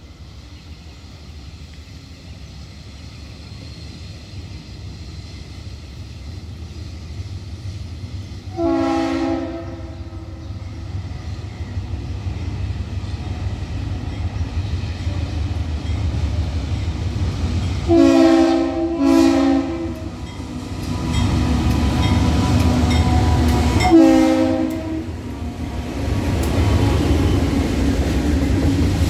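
Freight train hauled by three GE diesel-electric locomotives (C30-7, C36-7 and C44-EMi) approaching, its engine rumble growing steadily louder. The lead locomotive sounds its multi-note air horn: one long blast, then two short blasts close together, then one more blast.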